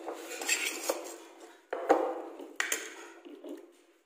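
Metal cutlery clinking and scraping against ceramic plates and bowls as food is served, with a few sharper clinks, the loudest about two seconds in.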